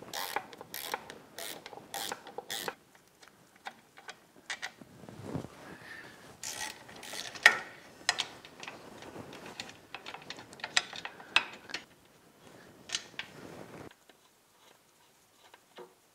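Hand socket ratchet clicking in short runs as it backs off the 14 mm bolts holding the lower unit to a Yamaha 90 outboard's midsection. The clicking stops a couple of seconds before the end.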